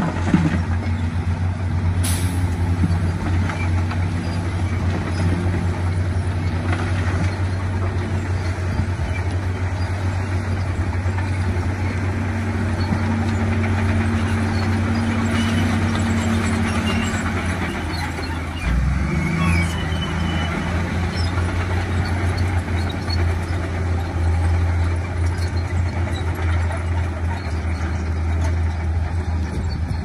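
Heavy diesel engine running steadily, a continuous low drone whose note shifts briefly about two-thirds of the way through. A short sharp click about two seconds in.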